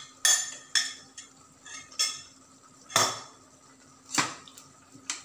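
A metal spoon knocking and scraping against a steel bowl and pan as minced meat is scooped out. It makes a string of separate clinks, the loudest about three seconds in, over a faint steady hum.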